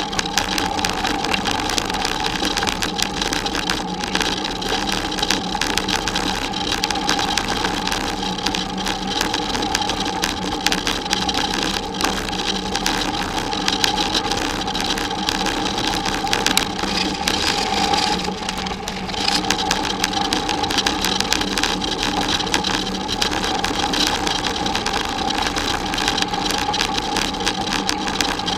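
Bicycle rolling over a gravel road: a continuous crunching rattle from the tyres and the shaking bike, with a steady hum underneath and a short lull about eighteen seconds in.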